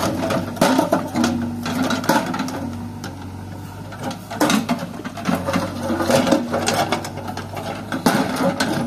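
JCB 3DX backhoe loader's diesel engine running with a steady hum while its backhoe bucket works a pile of large rocks, with repeated knocks and clatter of stone and steel throughout.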